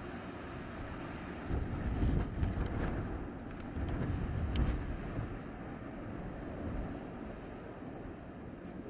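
Blizzard wind blowing in gusts: a steady rushing noise with deep rumbling surges about a second and a half in and again around four seconds in.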